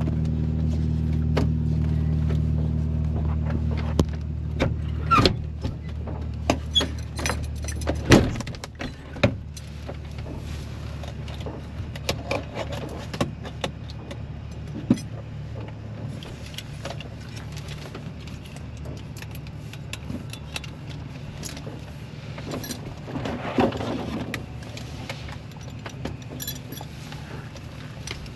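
Scattered clicks, knocks and light rattles of things being handled in a light aircraft's cockpit before engine start, over a steady low hum that is louder for the first few seconds.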